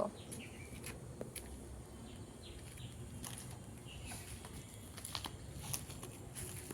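Quiet outdoor background with faint, scattered bird chirps and a few small clicks and rustles.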